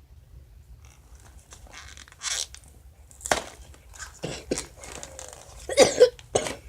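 A Cracker Jack snack box being torn and crinkled open by hand, in irregular short bursts of tearing and crunching paper packaging, loudest near the end.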